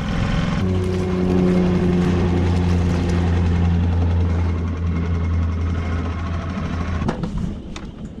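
Small outboard motor running at a steady pitch, over wind and water noise. The engine sound drops away about seven seconds in, followed by a few knocks.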